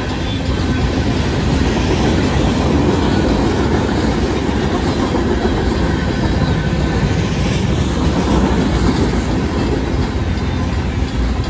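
Freight cars of a long Union Pacific mixed freight rolling past at a quick pace: a steady, loud rumble with the clatter of wheels over the rails. Crossing bells ring faintly underneath.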